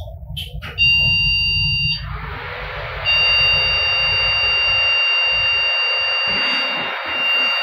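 HP desktop PC powering on with a fault: a click, then a beep of about a second from the motherboard beeper, then a long steady beep lasting several seconds. Under the beeps is the shh of the cooling fan running at full speed. The beeps are the PC's power-on error warning for a machine that gives no display.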